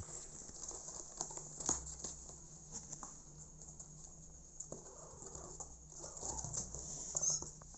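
Kitten paws and claws scratching and pattering on cardboard as the kitten scrambles about in a box: a run of irregular light clicks and scrapes.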